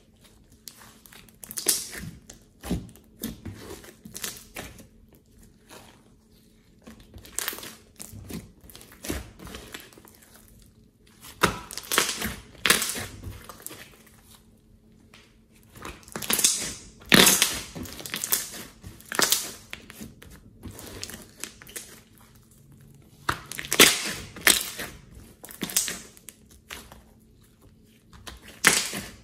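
Hands squeezing, stretching and folding a thick slime, giving irregular wet crackles and pops as trapped air bursts through it, in loud clusters a few times.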